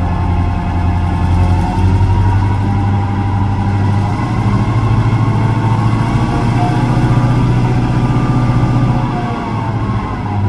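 Diesel engine of ex-CIÉ 141 Class locomotive No. 142, a General Motors EMD V8 two-stroke, running loudly and steadily, its note rising and falling only slightly.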